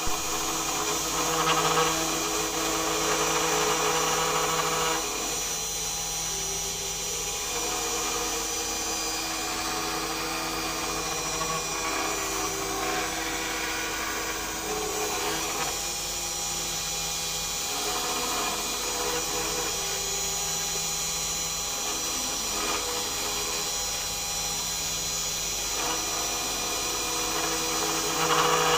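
Small Arduino-controlled CNC router carving wood: the spindle runs steadily through the cut while the axis motors add hums that change pitch and switch on and off every few seconds as the machine moves. It is louder for the first few seconds.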